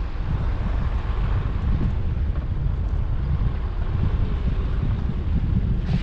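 Wind buffeting the microphone over the steady rumble of a car driving along a road.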